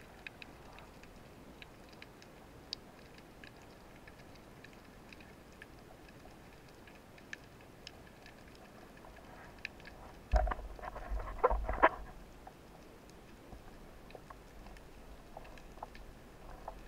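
Underwater ambience picked up through a camera housing on a speargun: faint scattered clicks and crackles over a low hiss, with a cluster of louder knocks and thumps from about ten to twelve seconds in.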